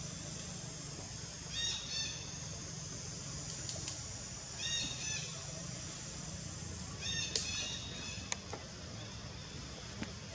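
Three short, high-pitched animal calls, each a quick pair of notes, repeated about every two and a half seconds over a low, steady background noise.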